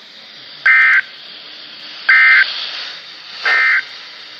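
Three short bursts of warbling two-tone EAS (SAME) digital data, each about a third of a second long and evenly spaced, over steady radio hiss from a NOAA Weather Radio broadcast. These are the end-of-message code that closes the alert.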